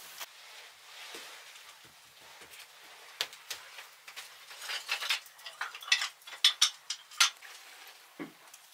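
Metal hand tools clinking and rattling against one another in a bucket as they are handled: a quick run of sharp clinks starting about three seconds in and stopping a little after seven.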